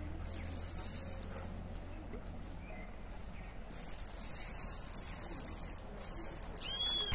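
Insects trilling in high-pitched stretches of one to two seconds that start and stop, with a short arched call near the end.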